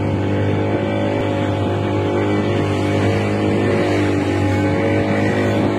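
Outboard motor of a small open boat running at a steady speed: a constant, even engine drone.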